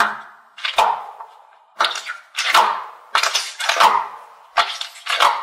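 A mesh-covered bead stress ball being squeezed by hand, each squeeze a short squishing crackle, about eight squeezes in quick succession.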